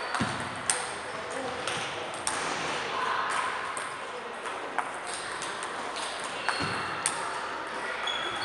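Table tennis balls clicking sharply off bats and tables during rallies, a handful of irregularly spaced clicks, with a couple of dull thumps in an echoing sports hall.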